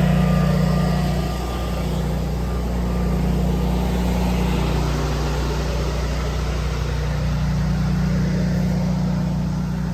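24 kW Generac standby generator running with a steady drone, carrying the house's power during a utility outage.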